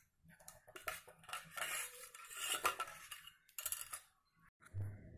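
Steel spoon stirring liquid jelly mixture in a stainless steel bowl, clinking and scraping against the bowl's sides in irregular strokes.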